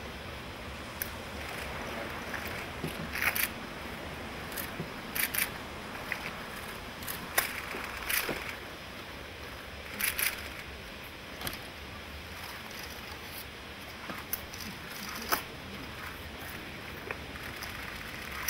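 Still-camera shutters clicking at irregular intervals, some in quick pairs, over a steady low background noise.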